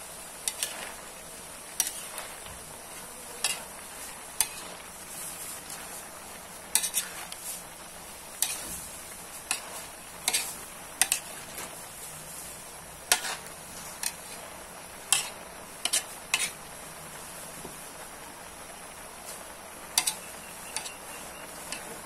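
Metal spatula scraping and clanking against a large metal wok at irregular intervals as vegetables are stir-fried, over a steady sizzle of frying. The clanks pause for a few seconds near the end.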